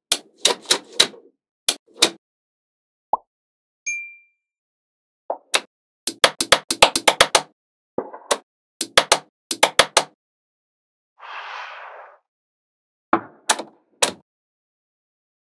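Small magnetic balls snapping onto one another, with sharp clicks. They come singly and in quick runs of several a second. A short burst of hiss comes about eleven seconds in.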